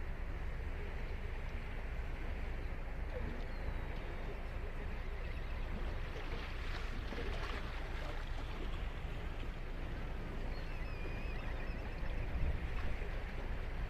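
Ocean surf washing onto a sandy beach: a steady rushing wash that swells about halfway through as a wave breaks and runs up the sand.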